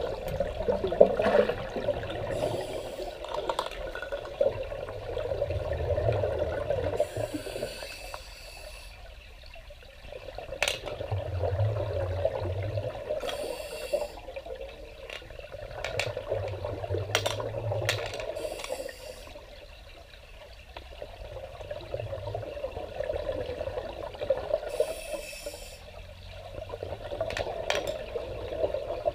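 Scuba breathing heard underwater through a regulator: slow cycles of inhaling and exhaling, with a hiss of bubbles on each exhale, every five or six seconds.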